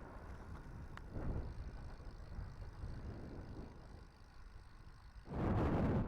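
Wind rushing over the microphone of a camera on a moving road bike, a low steady rumble. A much louder burst of rushing noise comes about five seconds in and cuts off after under a second.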